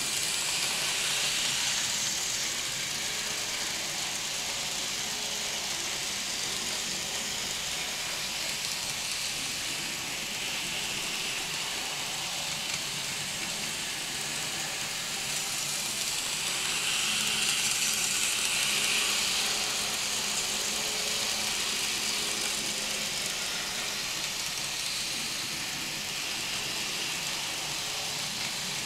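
N scale model train running around the track: a steady whirring hiss from the locomotive's motor and the wheels rolling on the rails, swelling louder near the start and again a little past the middle.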